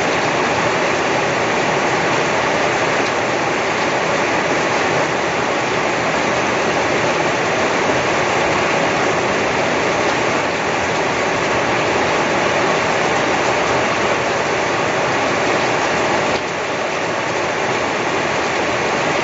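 Steady heavy rain falling, an even hiss of countless drops with no pauses. The level dips slightly about 16 seconds in.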